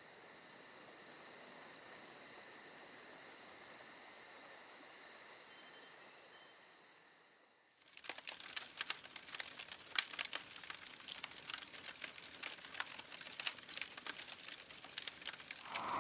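Faint, steady chirping of night insects, crickets, with an even pulse, fading out about seven seconds in. After a brief silence comes a run of irregular dry crackles and rustles.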